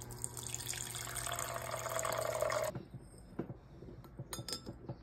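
Water running from a refrigerator door dispenser into a plastic measuring jug, with a steady low hum under it, cutting off suddenly about two and a half seconds in. A few light clicks and taps follow.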